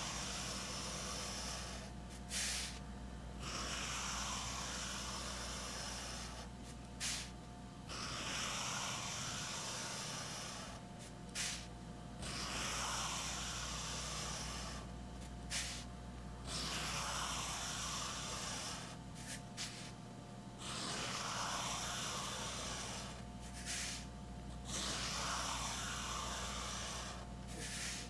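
Graphite pencil scratching down sketchbook paper in a series of long vertical strokes, each a few seconds long, with short pauses and a brief tap between strokes as the pencil is lifted and set down again.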